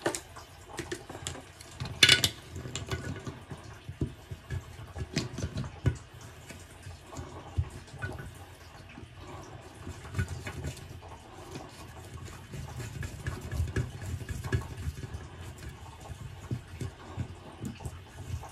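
Metal pop-up drain stopper being worked into a porcelain sink's drain by hand: scattered small clicks, taps and scrapes of metal on the drain, with one louder knock about two seconds in.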